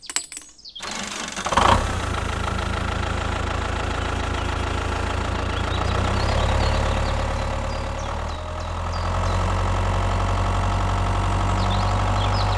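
Tractor engine starting about a second in, then running steadily.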